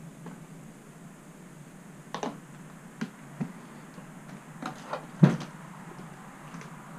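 Irregular knocks and clunks, about six over several seconds, the loudest about five seconds in, over a low steady background hum.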